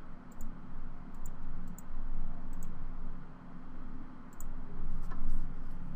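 Computer mouse clicking several times, some clicks in quick pairs, over a steady low electrical hum.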